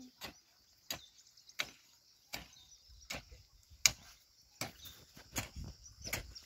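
Long-handled hoe chopping into soil, digging it up: about eight strikes at a steady pace of one every three-quarters of a second, one near the middle louder than the rest.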